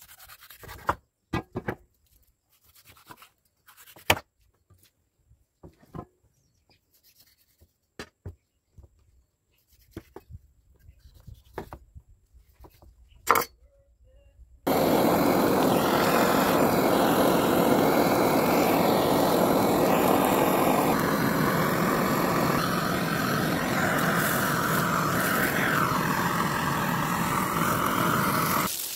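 Scattered clicks and knocks of a knife cutting the ears off a raw pig head on bamboo slats. About halfway a gas blowtorch starts suddenly and runs with a loud, steady hiss as its flame singes the pig head's skin.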